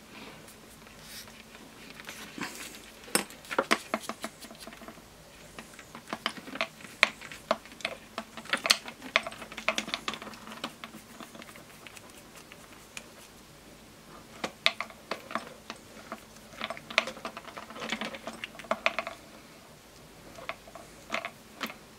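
Irregular clusters of small clicks and light rattles from a hard plastic cable plug being handled and unscrewed in the hands.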